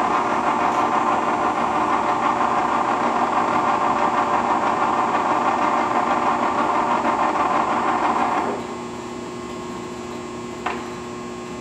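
Harrison 15 x 40 engine lathe running with its headstock gearing turning the spindle at 35 rpm, a dense steady mechanical whir. The two-speed drive motor is running only on its low speed because the high speed is out. About eight and a half seconds in, the noise drops to a quieter steady hum.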